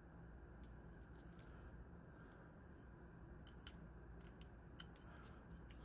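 Near silence with scattered faint small clicks and crinkles from copper foil tape being pressed and folded onto the edge of a glass bevel by hand.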